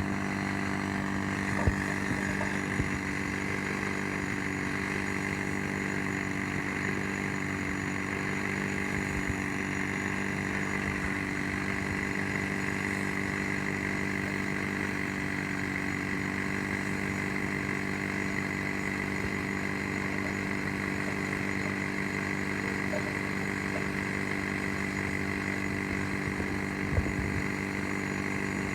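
A machine engine running steadily at an even pitch. A few short knocks come about two and three seconds in and near the end.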